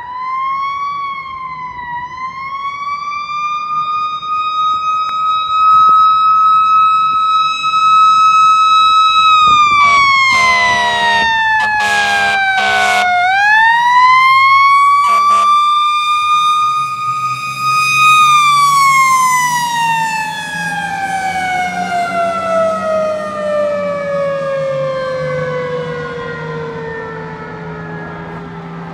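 Fire engine siren wailing, climbing and holding its pitch, sliding down, winding up again, then gliding slowly down as the truck moves away. A string of loud horn blasts cuts in about a third of the way through, with another short one soon after, and the truck's engine rumbles as it passes.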